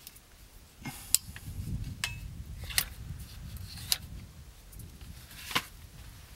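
A handful of sharp clicks and knocks, about five spread over a few seconds, over a low rumble that rises about a second and a half in and fades by the middle.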